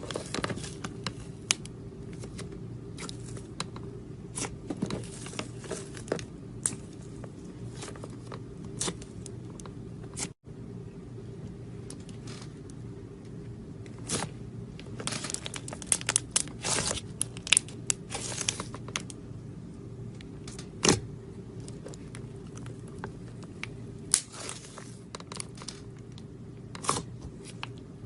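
Slime being squeezed, pressed and stretched by hand, making irregular sticky pops, clicks and crackles over a steady low hum. The sound cuts out for an instant about ten seconds in.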